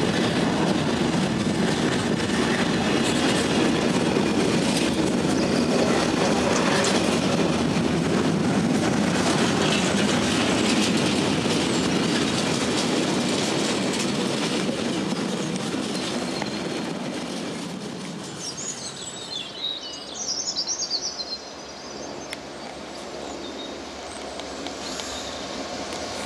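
Container freight train passing close by: a loud, steady rumble and clatter of the wagons on the rails that fades away after about sixteen seconds as the last wagons clear. A few seconds of high warbling chirps follow, and near the end the sound of another train approaching starts to build.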